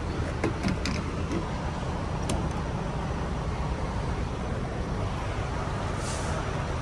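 Steady low vehicle rumble, with a few light clicks in the first couple of seconds and a short hiss about six seconds in.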